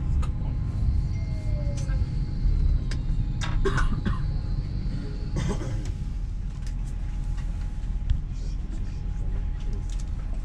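Steady low rumble and hum inside the carriage of an LNER Azuma high-speed train standing at a platform, with scattered small clicks and a brief burst of a passenger's voice about four seconds in.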